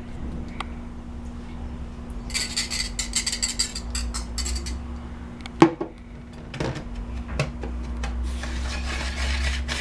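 Rapid clinking and tapping of kitchenware for a couple of seconds, then one sharp knock a little past halfway and a few lighter taps. Near the end a wire whisk beats cake batter in a plastic bowl with a steady scratchy stirring.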